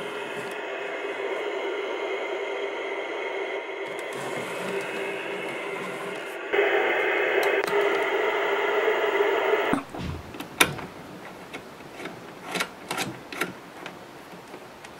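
Static hiss from the speaker of a Jensen J56-BWR portable CRT TV tuned to no signal, with a steady buzz in it. It gets louder about six and a half seconds in and cuts off abruptly near ten seconds. After that come scattered clicks and knocks of cables and plugs being handled and an antenna cable being plugged into a converter box.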